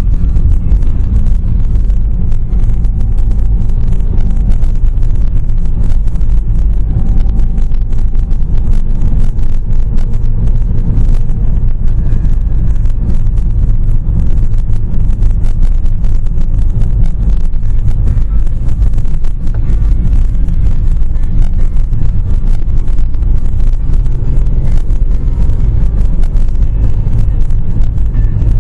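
Car running along a winding road, heard from inside the cabin: a steady low rumble of engine and tyre noise, with wind noise on the microphone.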